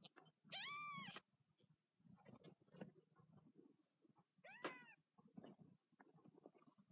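Week-old kittens mewing: two thin, high cries that rise and fall, a longer one about half a second in and a shorter one a little past the middle. Faint rustling of fur and bedding comes between them.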